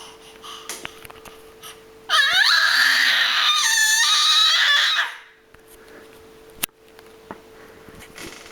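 A baby squealing at a high pitch: one long, loud squeal starting about two seconds in and lasting about three seconds, rising in pitch at its start.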